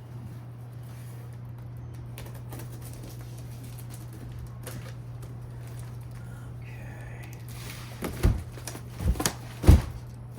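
Cardboard shipping box being handled and worked open: faint rustles and clicks, then three loud thumps near the end. A steady low hum runs underneath.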